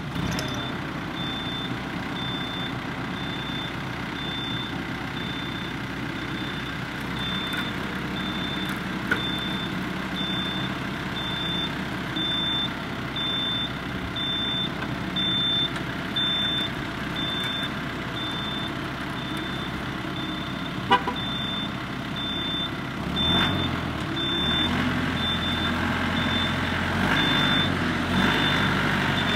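Yanmar tractor's diesel engine running in reverse under load, with a short high beep repeating about twice a second. About three-quarters of the way through, the engine note deepens and grows louder as more power goes to the wheels.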